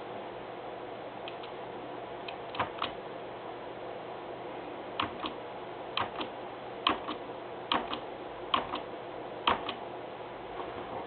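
Small sharp clicks in pairs, about a fifth of a second apart, coming roughly once a second for seven pairs over a steady background hiss.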